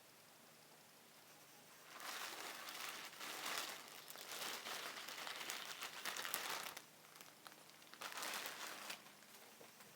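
Packaging being handled and crinkled in two stretches: a long bout of crackling from about two seconds in, then a shorter one near the end.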